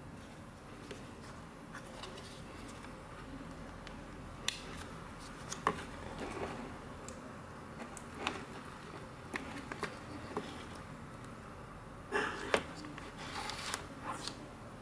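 Scattered light clicks and small knocks from hands handling a small plastic device and its packaging, with a busier cluster of clicks near the end, over a low steady hiss.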